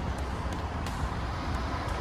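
Compact tractor engine running steadily while driving, a low rumble with a few light clicks and rattles.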